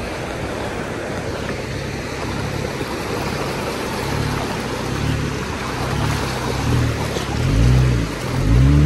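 Jeep Wrangler JL fording a creek in four-high: water rushing and splashing around the tyres over the engine. The engine swells in pitch and level twice near the end as it is given more gas.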